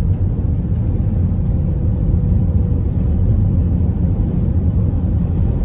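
Steady low rumble of a car driving, heard from inside the cabin: road and engine noise, with a faint steady hum that fades out about halfway through.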